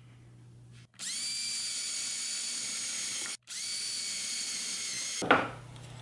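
Power drill boring pilot holes for screws through plywood with a twist bit: the motor runs at a steady high whine in two stretches of about two seconds each, split by a short break, then a short knock near the end.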